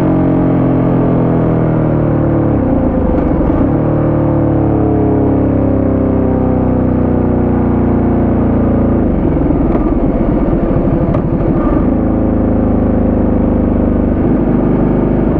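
Ducati Multistrada 1200S's 1198 cc L-twin engine running under way on the road, its revs easing down slowly, with the engine note dipping and picking up again about three seconds in and again about nine seconds in.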